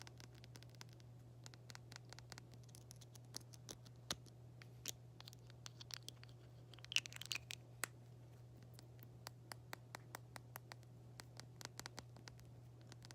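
Light, irregular tapping and clicking on small objects, with a short burst of quick scratching about halfway through, over a steady low electrical hum.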